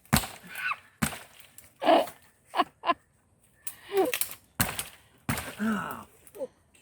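Dry dead branches cracking and snapping several times as they are broken, with short voice sounds like grunts of effort between the snaps.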